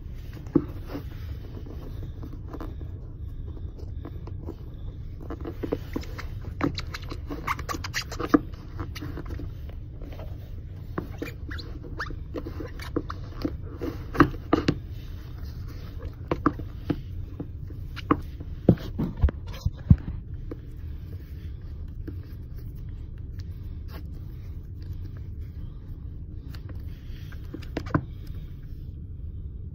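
Scratchy rustles and small clicks of hands lacing and tying brown leather lace-up shoes, most of them between about 5 and 20 seconds in, over a steady low rumble.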